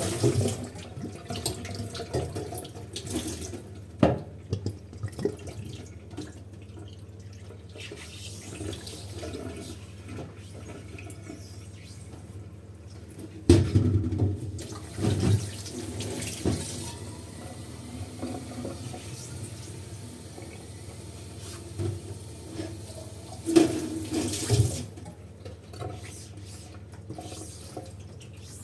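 Dishwashing at a sink: water running and splashing, with scattered clinks and knocks of dishes being handled, busiest in clusters about halfway through and again near the end.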